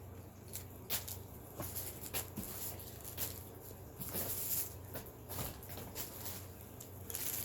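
Scattered clicks and brief rustles of items and plastic packaging being handled, over a steady low hum.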